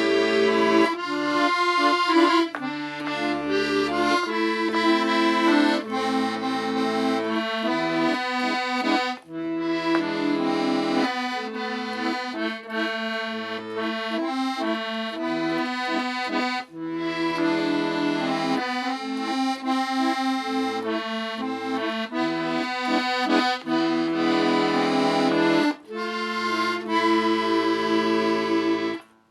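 Accordion playing a tune: a melody line over chords and low bass notes, with short breaks about 9, 17 and 26 seconds in, stopping just before the end.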